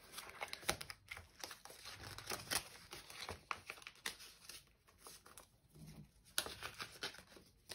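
Quiet rustling and crinkling of a paper envelope and polymer banknotes being handled, as notes are slid into the envelope and it is tucked into a binder pocket, with scattered short sharp clicks.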